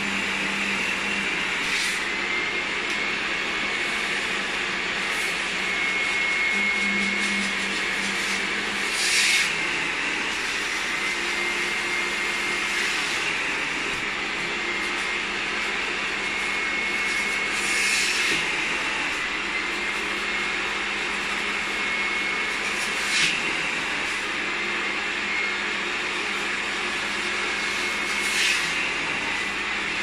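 Thomas washing vacuum cleaner running steadily with its upholstery nozzle drawn over fabric chair cushions, sucking up spray water. A brief louder rush of air comes every four to five seconds.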